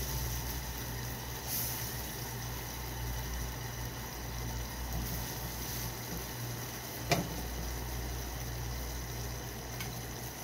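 Honey and melted butter simmering in a frying pan while being stirred, over a steady low hum. A single sharp click about seven seconds in.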